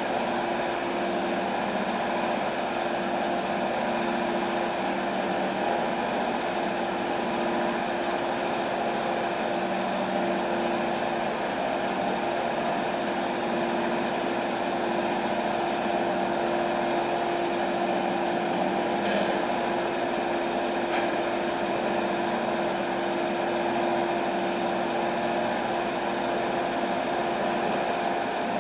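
Sawmill machinery running steadily without cutting, a constant hum with one clear steady tone, with a faint click about two-thirds of the way in.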